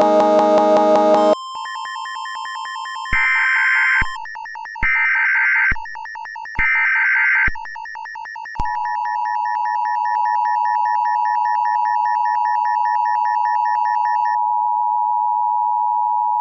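A synthesized falling run of notes ends in a loud chord that stops about a second in. Over a steady electronic tone, three one-second bursts of buzzing Emergency Alert System data tones follow, then the EAS two-tone attention signal starts about eight seconds in and holds steady.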